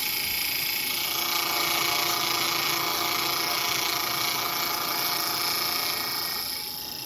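Bridgeport milling machine's cutter milling a slot in a metal bar: a steady, loud cutting noise with several steady ringing tones. About six and a half seconds in the cutting noise falls away, leaving the quieter running machine.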